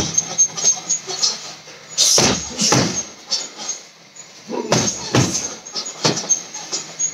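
Punches landing on a heavy bag: irregular thuds in short groups of two or three, with a lull in the middle.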